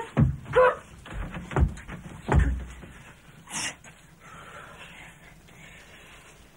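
Three dull thumps of bodies bumping against a painted wooden wall and door during an embrace, with a short voiced sound just after the first thump and a brief breathy hiss a little later.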